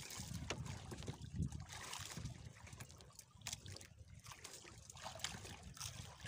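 Sea water lapping and sloshing against the hull of a small outrigger fishing boat, with a few light clicks.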